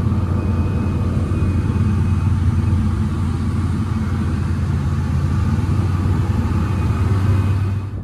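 Single-engine seaplane's engine and propeller running with a deep, steady drone, heard from inside the cockpit.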